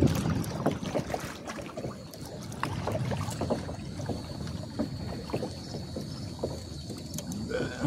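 Water lapping and splashing irregularly against a kayak's hull as the kayak moves along on calm water.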